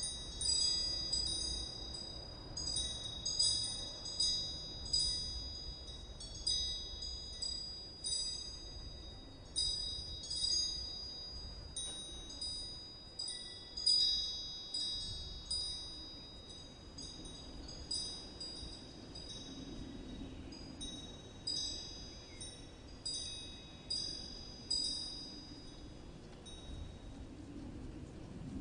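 Metal wind chimes ringing in irregular, overlapping high strikes that each ring on and fade, thick at first and thinning out after about halfway, over a soft low rumble.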